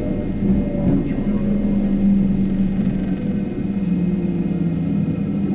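Sunrise Izumo 285-series electric sleeper train heard from on board while running: a steady rumble with a low hum, a second, lower hum joining about four seconds in.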